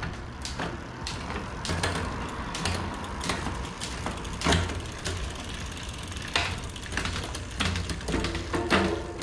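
Hands-on work on a mountain bike's drivetrain and brakes: an irregular run of sharp clicks and knocks from parts being turned and adjusted, over a low intermittent rumble.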